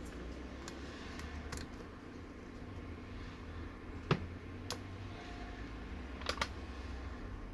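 Scattered small, sharp clicks and taps of tools and small phone parts being handled during an iPhone repair, the loudest about four seconds in and a close pair a little after six seconds, over a low steady hum.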